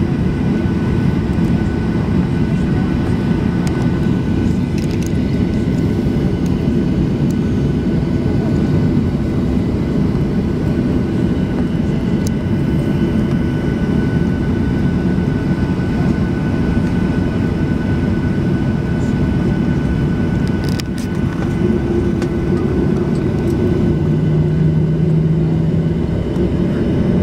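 Cabin noise of an airliner taxiing: a steady engine rumble with a thin, steady whine above it. A deeper engine tone comes in near the end.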